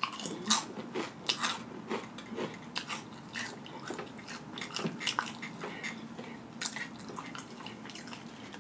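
Close-miked chewing and wet lip smacking on a ghost-pepper tortilla chip: irregular mouth clicks and smacks, stronger in the first few seconds and softer after that.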